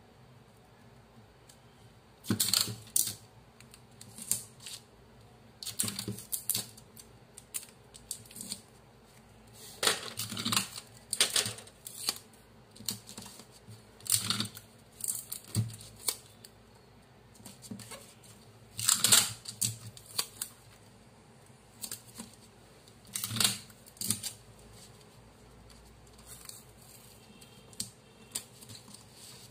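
Paper strips being handled on a paper pattern: irregular rustles and scrapes as they are smoothed flat by hand and stuck down with clear adhesive tape.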